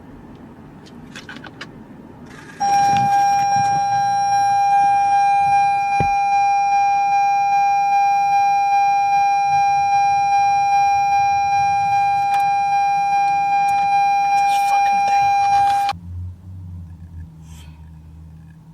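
A single steady horn tone, held for about thirteen seconds and cut off suddenly, over low traffic noise; after it stops, a vehicle engine hums.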